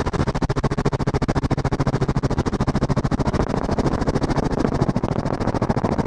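Helicopter rotor chop in flight, a fast even beating of about a dozen beats a second, over heavy wind noise rushing past an open cabin door.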